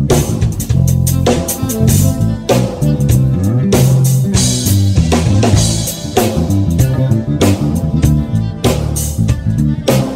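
Live band playing: a bass line moving through low notes over a drum kit, with guitar, and a strong drum and cymbal hit roughly every second and a quarter.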